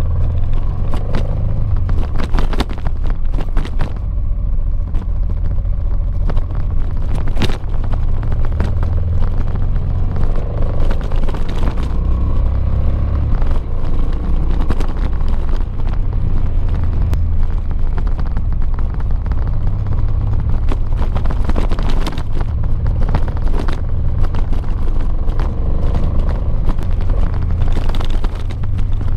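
Honda XL700V Transalp's V-twin engine running on a gravel road, its pitch rising and falling with the throttle, over a heavy low rumble and many sharp clicks from the loose surface.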